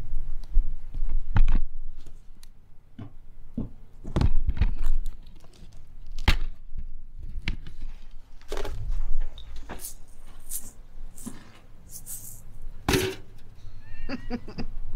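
Rummaging through a pile of discarded items: irregular knocks and thunks of objects being moved, with rustling of fabric and plastic and bumps of the camera being handled.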